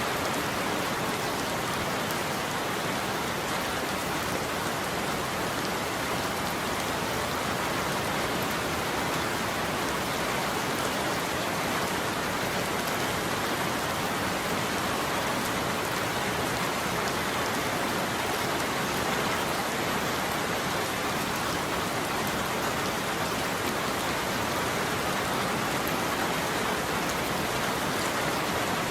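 Steady heavy rain falling on a surface, an even patter of many drops with no thunder.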